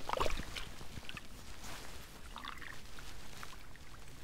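Muddy water sloshing and trickling in a flooded furrow, with a burst of splashes and small clicks about the start and scattered soft ticks after.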